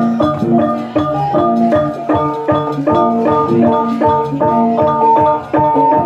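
Music of tuned struck percussion: a quick interlocking pattern of pitched, ringing notes that cycles about once a second.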